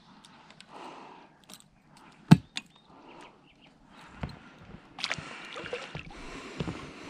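Water sloshing and splashing, with a sharp knock a little over two seconds in and a busier stretch of splashing from about five seconds on.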